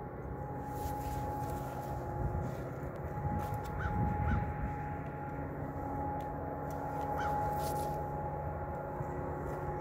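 A crow cawing a few times, the calls coming in pairs, over a steady low droning hum.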